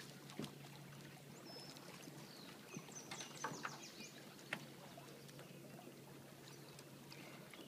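Faint river ambience from a small fishing boat: birds chirping, water lapping against the hull, a few light clicks, and a low steady hum underneath.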